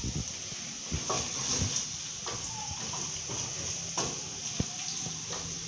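Wooden spoon stirring onions and ginger in an aluminium pot, knocking lightly against the pot about once a second over a steady sizzle of frying.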